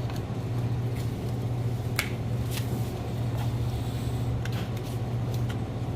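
Electric sharpening machine's motor running with a steady hum, with a few brief scrapes and clicks as the knife blade is worked against it. The edge is being reshaped to grind out small notches.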